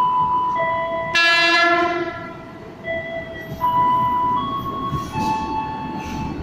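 Train horn sounding one blast of about a second, starting about a second in, as the train approaches through the station. Under it and throughout runs a slow melody of single held tones that step from one pitch to another.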